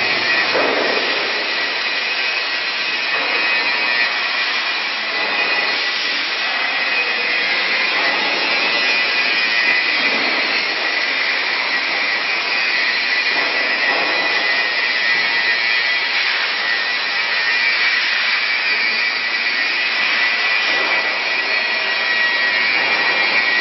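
Steady, loud industrial machine noise: a dense hiss with a high steady whine running through it, as from the hydraulic drive of a large CNC guillotine shear.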